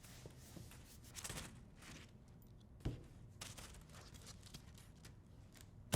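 Faint handling noise from a squishy fidget toy being played with: soft rustles and a few light taps, with one sharper click about three seconds in.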